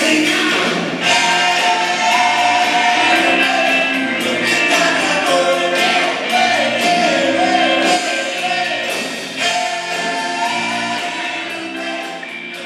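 Live band music with singing over guitar and drums, growing gradually quieter over the last few seconds.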